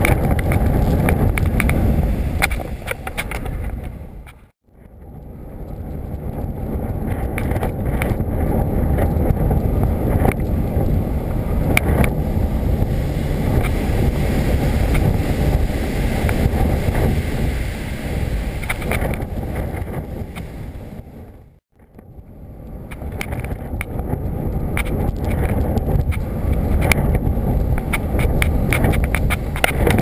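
Strong wind rushing and buffeting over a GoPro mounted on a kitesurfing kite in flight, with frequent sharp crackles. The sound fades out and comes back twice, at about four and a half and twenty-two seconds in.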